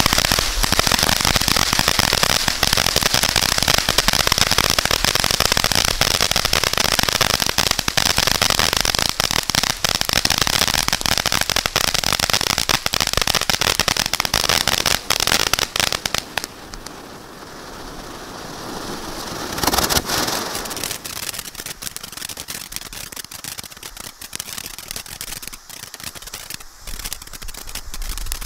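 Winda iFTN consumer firework going off: dense, rapid crackling and popping for about sixteen seconds. Then comes a short lull, a rushing gush about twenty seconds in, and scattered crackles and pops after that.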